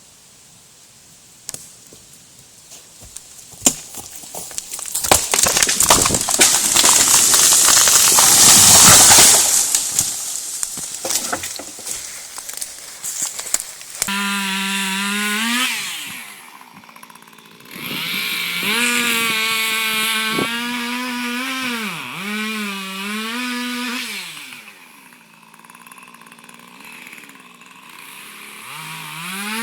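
Loud cracking and crashing noise of wood that builds and peaks about eight seconds in. From about halfway a chainsaw engine takes over, revving up and down over and over, with two short lulls.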